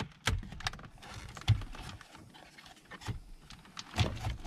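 Plastic dash trim of a Nissan Titan clicking and knocking as the A/C control panel is wiggled loose by hand, with a sharper knock about a second and a half in and another near the end.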